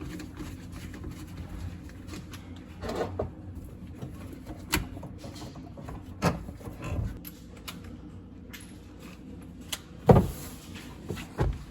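Scattered knocks and clicks of tools and metal parts being handled while a dishwasher is being disconnected, five or so sharp ones spread out, the loudest about ten seconds in.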